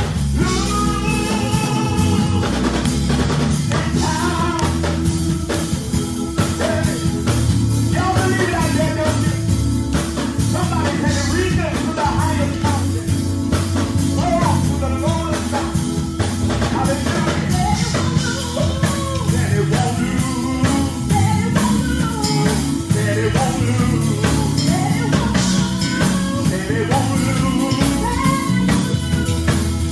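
Gospel praise music played live by a band with a drum kit and steady bass, with singing over it.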